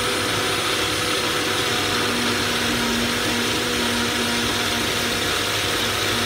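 Ninja blender running steadily, blending frozen strawberries and blueberries into a smoothie. A second, lower hum joins the motor noise about two seconds in.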